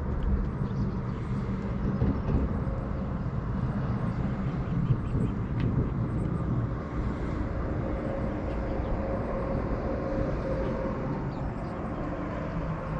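A steady low motor hum over outdoor background noise.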